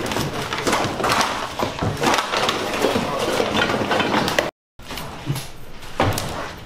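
Clatter and rustling of household junk being handled and tossed into bins, with many short knocks of plastic, wood and metal. The sound drops out completely for a moment about four and a half seconds in.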